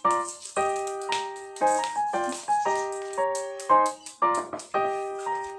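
Background piano music: a simple melody of single struck notes, about two a second, each ringing and fading.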